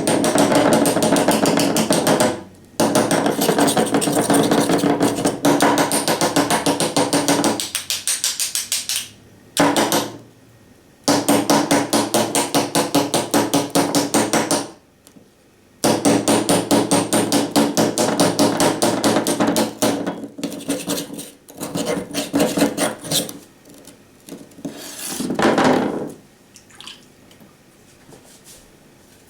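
Steel knife blade struck rapidly and repeatedly against rock, in several long runs of fast hits with short pauses between them, the hits growing sparser and weaker toward the end. The edge is being deliberately battered to chip and dull it.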